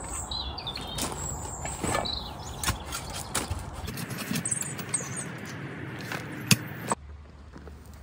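Compost being dug and rummaged out of a wooden compost bin: steady rustling and scraping with scattered small knocks and one sharper knock, while small birds chirp. Near the end the digging stops abruptly, leaving quieter garden air with birds.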